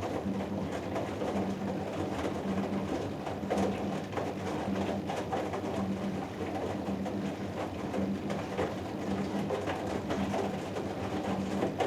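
Hoover Dynamic Next DXA610IW3 front-loading washing machine in the wash phase of a 90 °C cotton cycle: the drum motor hums, cutting in and out every second or so, while the wet load and water tumble inside the drum with soft irregular knocks.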